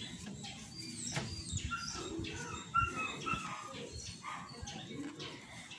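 A dog whimpering and yipping faintly in the background: a few short, high calls that bend in pitch, bunched in the middle.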